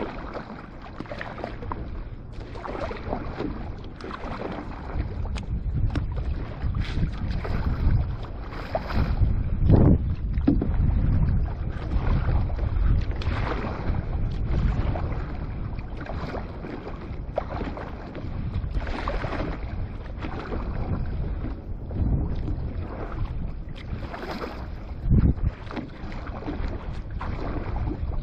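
Water slapping and splashing against a board on choppy sea, in irregular surges with two louder splashes, about ten seconds in and near the end. Wind buffets the action-camera microphone throughout.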